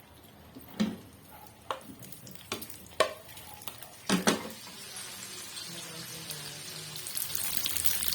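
Kitchen cooking sounds: a utensil knocks sharply against a pan about five times, then a frying sizzle grows louder near the end.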